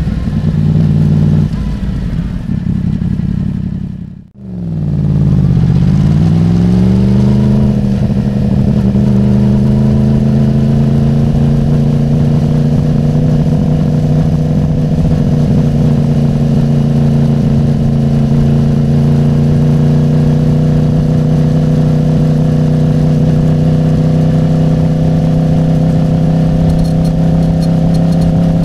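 Yamaha YZF-R1's crossplane inline-four through a MIVV carbon exhaust, heard onboard while riding at a steady cruise. About four seconds in the sound cuts out briefly, then the engine note dips and climbs as the bike pulls away. It settles into a steady cruise with the revs creeping up slowly.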